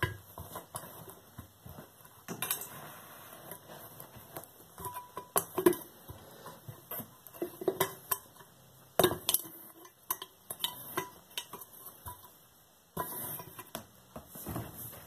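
Silver-plated teapot being stamped on and kicked with high-heeled boots: irregular metallic clanks and knocks with brief ringing as the thin metal dents and crushes, and a longer scraping stretch near the end.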